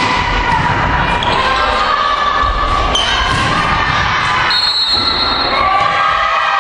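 Indoor volleyball rally in a large, echoing sports hall: the crowd shouts and cheers steadily over the thuds of the ball being played. A short high tone sounds about two-thirds of the way in.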